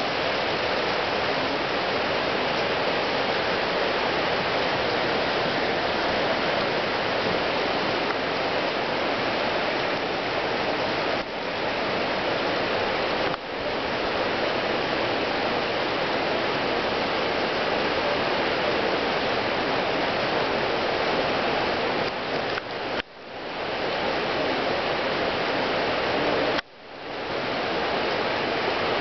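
Steady rush of a river in flood, fast brown floodwater pouring over its banks and through the bushes. The sound briefly drops away and swells back a few times.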